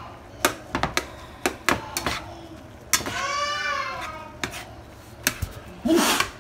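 Metal spatula clicking and scraping against a skillet as ground beef is stirred and broken up. A high, drawn-out cry rises and falls about three seconds in, and a loud rustle of handling comes near the end.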